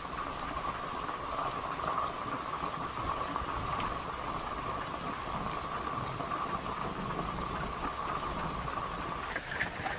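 Heavy rain falling on a tent, heard from inside as a steady hiss. A steady high-pitched hum runs alongside and stops about nine seconds in.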